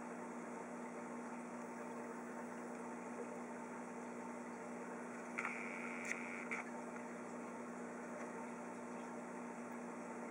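Steady hum and hiss of an aquarium air pump running, with the bubbling of its air curtain. About halfway through comes a second-long burst of higher hiss, with a few clicks.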